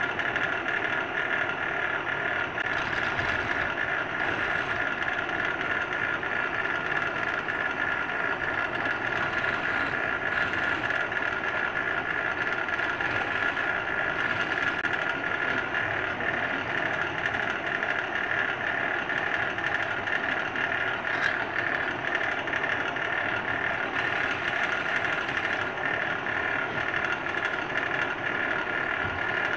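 Bench drill press motor running steadily while its bit drills into a small metal engine-head block held in a vise.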